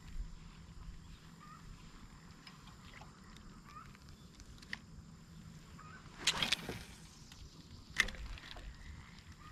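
Open-air ambience from a kayak on a creek: a low wind rumble with faint short bird chirps. A brief rush of noise comes about six seconds in, like a paddle or splash at the hull, and a single sharp knock follows about eight seconds in.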